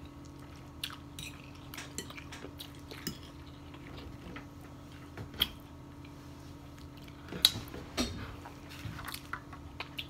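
Metal forks clinking and scraping against plates of noodles in scattered, irregular taps, the sharpest one about seven seconds in.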